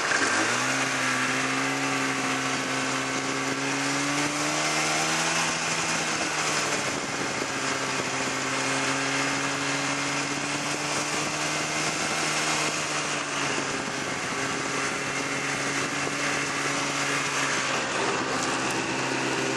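Snowmobile engine running steadily under way, heard up close, its pitch rising a little a few seconds in and dipping briefly later on.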